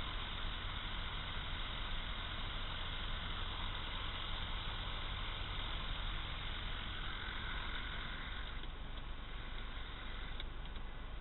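Robin DR400 light aircraft's piston engine and propeller running steadily at low power while taxiing, heard from inside the cockpit, easing a little past halfway. A few light clicks near the end as the canopy latch is worked.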